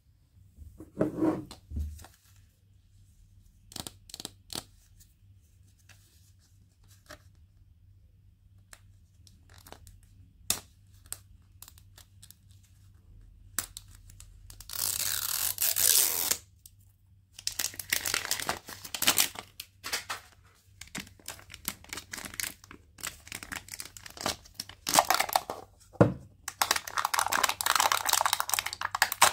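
Toy packaging being unwrapped by hand: a few light clicks and taps at first, then a loud tear about halfway through, followed by bouts of crinkling wrapper.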